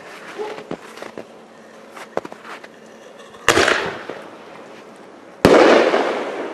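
Brothers "American Chief" firework ball shell: the lift charge fires with a sharp bang about three and a half seconds in, and about two seconds later the shell bursts overhead with a louder bang that fades slowly over a second or more.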